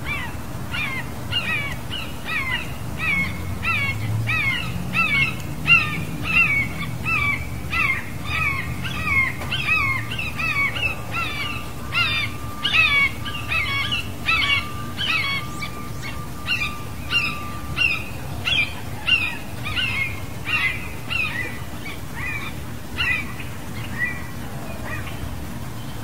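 Hawk calling a long series of sharp, downslurred cries, about two a second, thinning out and fading near the end, over a steady low background rumble.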